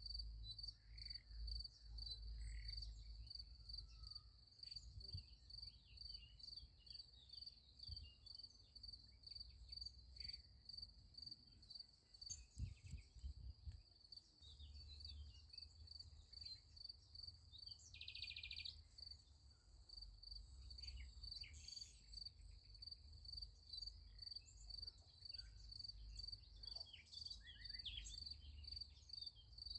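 Crickets chirping in a steady, even pulse throughout, faint, with scattered short bird chirps and a low rumble underneath.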